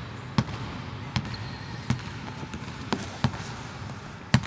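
A basketball bouncing on a hardwood court, about six thuds at uneven intervals, each with a short echo from the large empty hall.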